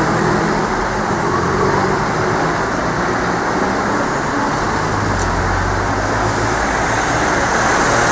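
City boulevard traffic: cars, a delivery van and motor scooters driving past, a steady mix of engine and tyre noise with a low engine hum swelling about five seconds in.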